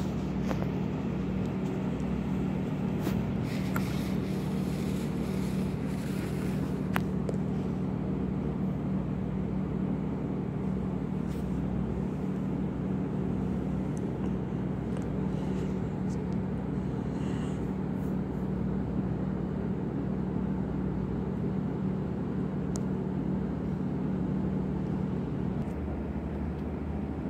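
Steady low engine drone with a constant hum, shifting slightly near the end.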